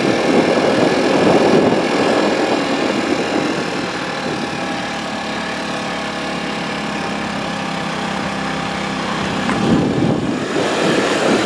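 A motor running steadily, giving an even hum with a rougher, noisier rumble that eases off about a third of the way in and comes back near the end.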